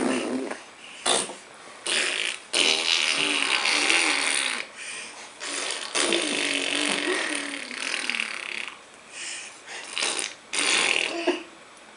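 A run of imitation fart noises: about nine buzzy, sputtering blows, some short and some held for a couple of seconds.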